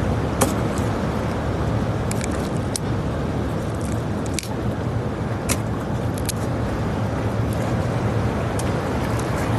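Steady strong sea wind and surf rumbling on an open rocky shore, with wind buffeting the microphone. About a dozen short sharp clicks and taps are scattered through it, with no steady rhythm.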